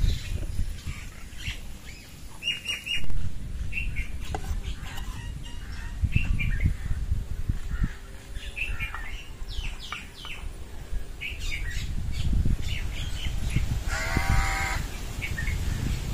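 Birds chirping with many short calls over a low rumble of wind on the microphone. The loudest run of chirps comes about three seconds in, and one longer, harsher call sounds near the end.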